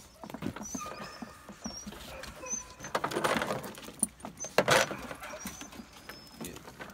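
Wire door and latch of a plastic dog crate rattling and clicking as it is worked open, with scattered knocks.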